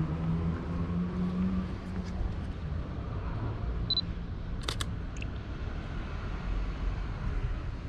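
Canon EOS M50 mirrorless camera giving a short high beep on focus lock, then its shutter firing once with a quick double click about a second later. Low hum of city traffic underneath.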